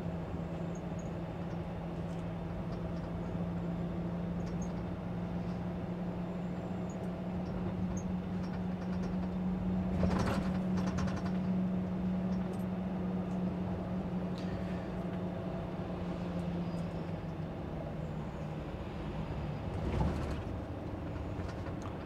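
Lorry's diesel engine and road noise heard from inside the cab while driving, a steady drone with a constant low hum. Brief rattles come about halfway through and again near the end.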